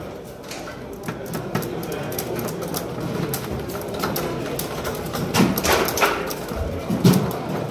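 Foosball table in play: quick sharp knocks and clacks of the ball, the figures and the rods, with a few louder clusters of hits about five and a half and seven seconds in.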